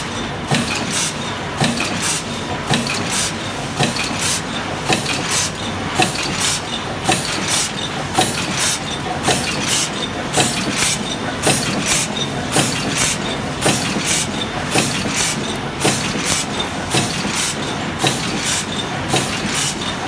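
Press machine running continuously, stamping in a steady rhythm of sharp metallic strokes about twice a second over a constant machine hum.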